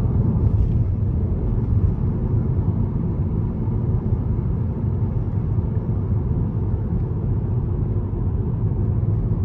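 Steady low rumble of road and tyre noise inside a 2020 Hyundai Sonata's cabin as it cruises at highway speed.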